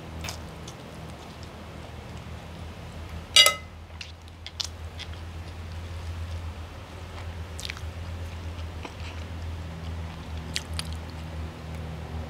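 Close-up chewing and eating sounds of spaghetti and prawns, with small wet clicks, over a steady low hum. About three and a half seconds in comes one short, loud ringing sound, the loudest moment.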